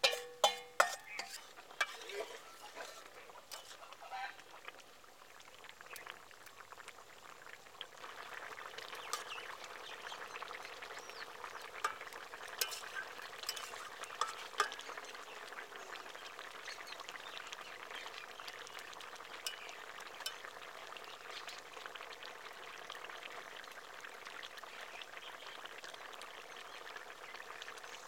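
Vegetable curry cooking in a steel wok over a wood fire: a few sharp metal clinks near the start, then from about eight seconds in a steady sizzling and bubbling with occasional scrapes and ticks of a metal spatula stirring.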